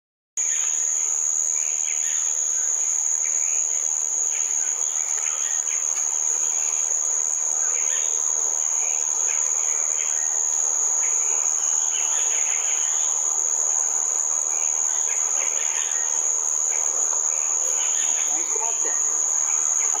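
Insects droning at a single, steady high pitch without a break, with fainter irregular chirps behind.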